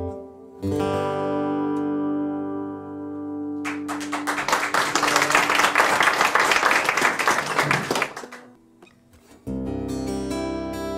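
Solo steel-string acoustic guitar. A ringing chord is followed by about four seconds of fast, noisy, percussive strumming. After a pause of about a second, ringing chords start again.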